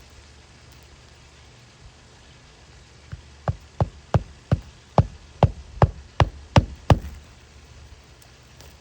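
A quick run of about eleven sharp knocks, roughly three a second, lasting about four seconds and growing louder, over a faint steady low hum.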